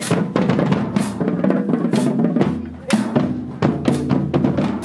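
Marching band drumline playing a cadence: snare drum rolls and bass drums, with a heavy accented hit about once a second.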